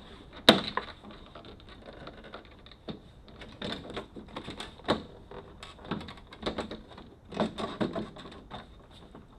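Irregular clicks and knocks of hands and tools working on a Jeep Wrangler TJ door's hardware, the sharpest strike about half a second in, then scattered clicks in small clusters.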